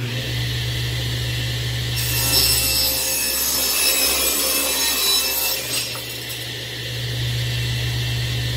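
SawStop belt-drive cabinet table saw running with a steady motor hum. About two seconds in, the blade rips a board fed along the fence, a loud cutting noise lasting about four seconds, then the blade spins free again.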